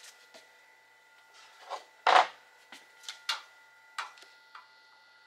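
Old tape being peeled and pulled off a flexible vent hose: a handful of short rustling, crinkling tears, the loudest about two seconds in.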